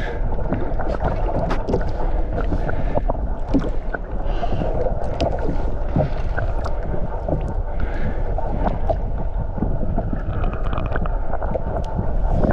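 Steady wind and water noise aboard a small fishing boat at sea, with scattered small knocks and clicks.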